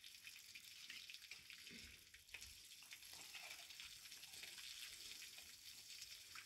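Faint running water with light splashing and trickling as a hand works in a shallow puddle.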